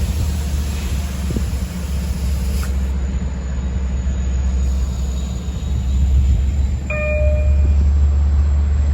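LIRR DE30AC diesel-electric locomotive's engine running with a steady deep rumble. About seven seconds in, a short single-pitched tone sounds for under a second.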